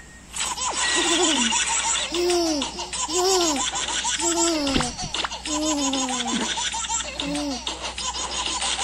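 A baby laughing in a string of short rising-and-falling squeals, about six or seven over several seconds.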